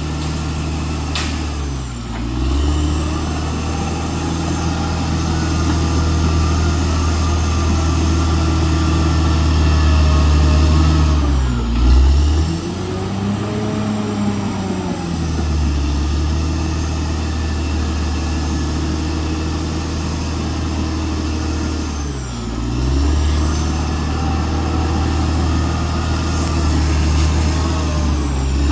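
CAT D6R XL bulldozer's diesel engine running steadily. Its pitch sags and recovers about two seconds in, around twelve seconds and again near twenty-two seconds, with a slow rise and fall in pitch in between.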